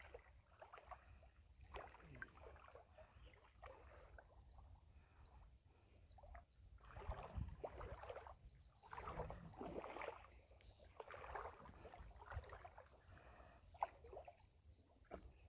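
Faint sloshing and splashing of water in soft bursts, heaviest around the middle, over a low rumble of wind on the microphone.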